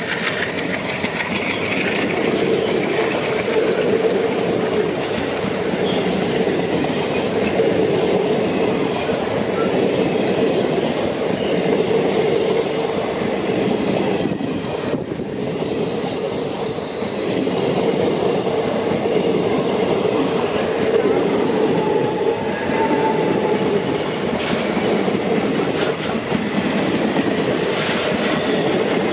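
Passenger train coaches running past close by at speed: a steady rumble with the clatter of wheels over the rail joints, and a brief high wheel squeal about halfway through.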